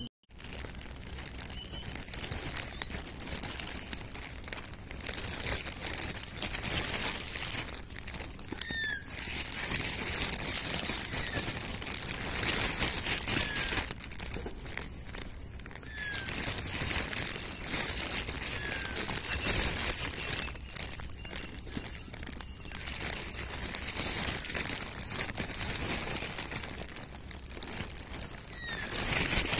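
Plastic bread bag crinkling in repeated swells as it is handled. A few short, faint falling bird chirps come and go.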